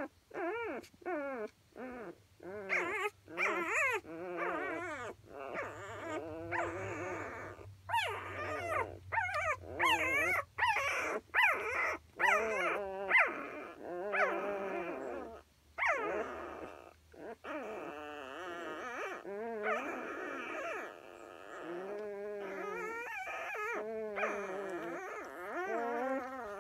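A litter of six-day-old puppies whimpering and squealing: short high cries at first, then longer wavering cries from several pups at once, overlapping.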